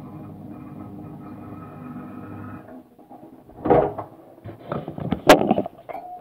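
Dishwasher running with a steady hum, which stops a little under three seconds in; then a series of loud knocks and clatters, and a short tone near the end.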